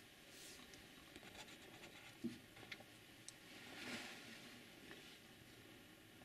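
Near silence with faint scratching and clicking, the handling noise of a handheld camcorder. There is one small knock about two seconds in and a brief rustle around four seconds.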